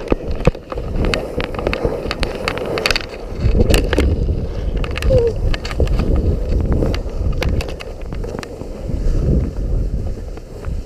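Strong gusty wind buffeting the microphone, a heavy uneven rumble that swells and eases, with many scattered clicks and rustles over it.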